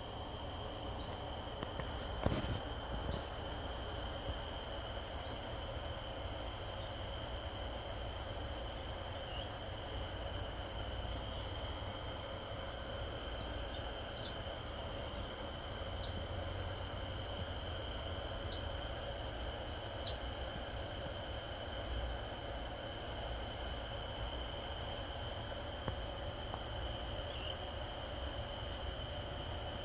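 Night insects chirping steadily at several different pitches, one of them in trills that break off and resume every second or two. A single brief knock comes about two seconds in.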